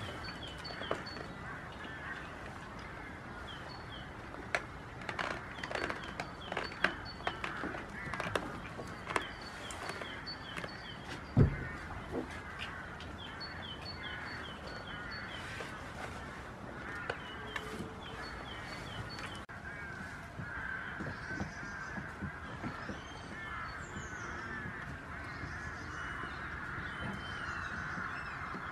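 Birds chirping and calling, with scattered clicks and knocks and one louder thump about eleven seconds in.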